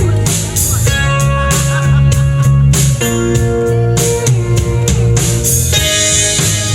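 Country band playing an instrumental intro: guitars over a steady drum beat, with no vocals yet.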